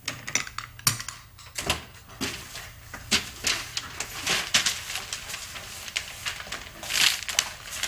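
Footsteps, irregular knocks and paper rustling as a large paper-wrapped parcel is carried and set down on a wooden desk, with a louder rustle and thump about seven seconds in.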